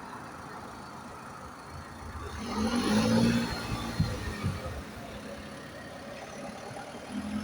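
A road vehicle driving past, its engine hum and tyre noise rising to a peak about three seconds in and then fading, over a steady background of traffic noise.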